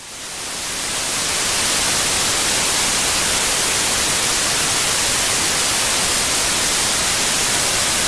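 Steady white noise, a full even hiss from the white-noise setting of a Magicteam sleep sound machine. It fades in over the first second or so.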